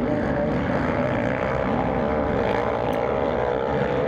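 MX1-class motocross bike engine revving hard, its pitch rising and falling again and again as the throttle is opened and closed through the turns.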